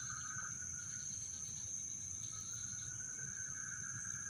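Steady chirring of crickets and other night insects: a continuous high-pitched tone with a lower steady tone beneath it, which drops out for about a second near the start and then returns.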